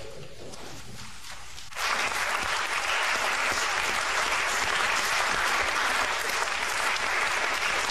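Audience applauding at a runway show. The clapping comes in suddenly about two seconds in and then holds steady.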